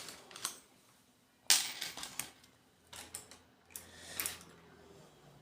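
A few sharp clicks and light knocks of small hard objects being handled on a tabletop, the loudest about one and a half seconds in.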